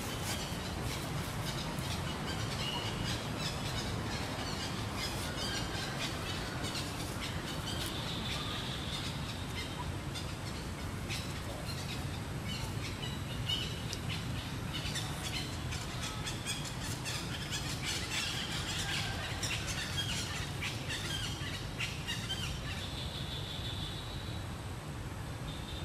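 Outdoor ambience of birds chirping here and there, over a steady low rumble and frequent small clicks.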